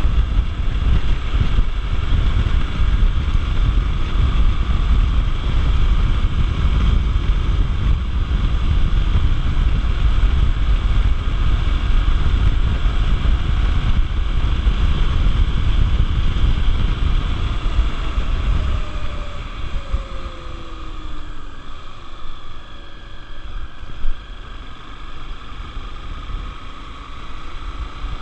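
Heavy wind buffeting on the microphone of a moving Honda XR 250 Tornado motorcycle, with its single-cylinder four-stroke engine running underneath. About two-thirds through the wind noise drops and a few falling tones follow as the bike slows.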